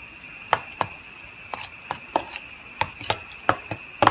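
Fork clicking against a plastic bowl as cucumber in cream is stirred, in irregular taps two or three times a second. Crickets trill steadily behind.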